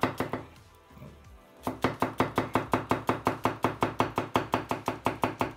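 Chinese-style cleaver chef's knife slicing green onions on an end-grain wooden cutting board: a few chops, a short pause, then a fast even run of blade strikes on the board, about six a second.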